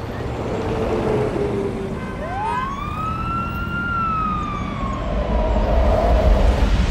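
A siren wail: one tone rises quickly over about a second, holds high, then slowly falls away over the next couple of seconds, over a haze of city traffic noise. Near the end a deep rumble swells as the nuclear-blast sound effect begins.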